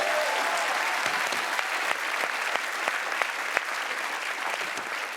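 Studio audience applauding and cheering, the clapping slowly dying down.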